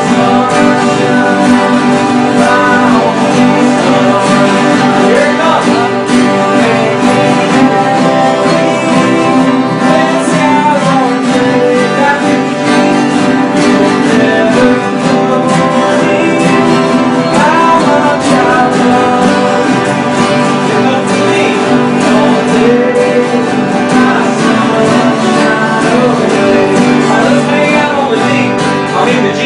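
A group of acoustic guitars strummed together in a steady country-style accompaniment in the key of G, with voices singing along.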